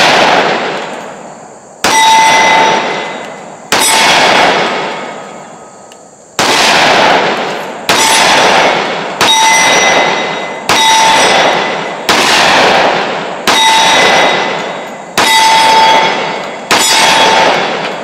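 Smith & Wesson M&P 10mm pistol firing ten shots, roughly one every one and a half seconds, each crack trailing a long echo. Most shots are followed by the brief ring of a steel target being hit.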